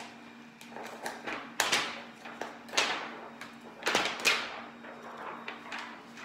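Thin clear acetate sheet crinkling and popping as it is pulled off the pins of a 3D-printed face-shield visor by gloved hands, a run of sharp crackles, the loudest about a second and a half, three and four seconds in.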